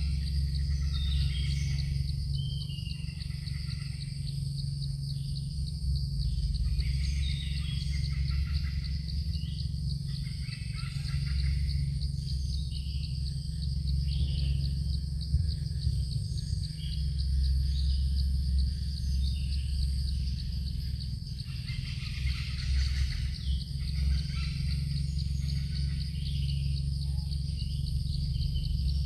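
Evening forest ambience: insects trilling in a steady high drone, with scattered short bird chirps over a steady low rumble.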